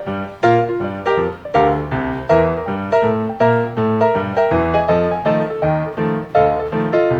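Background piano music: a steady run of bright struck notes, several a second.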